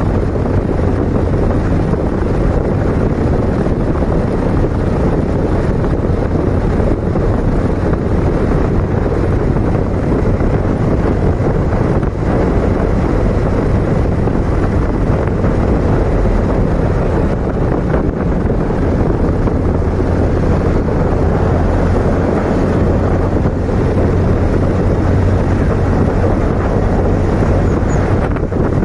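Motorcycle being ridden at a steady cruise: wind buffeting the microphone over the engine's low, even drone.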